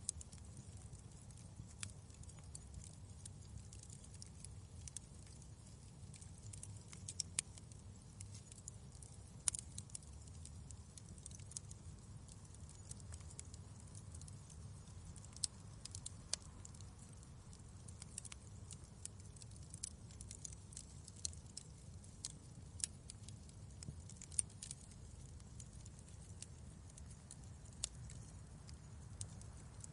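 Wood fire crackling in a fireplace: irregular sharp pops and snaps over a steady low rumble of burning flames.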